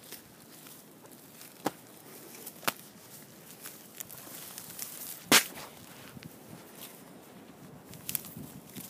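A heifer grazing, tearing off mouthfuls of grass: four sharp snaps a second or so apart, the loudest about halfway through.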